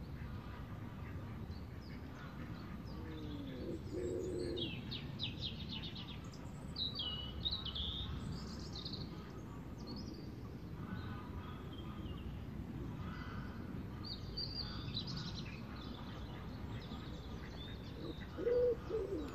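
Wild songbirds chirping and trilling in short scattered phrases, over a steady low rumble.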